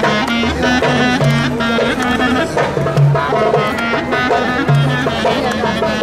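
Band playing fast folk dance music: pitched melody instruments over a steady drum beat.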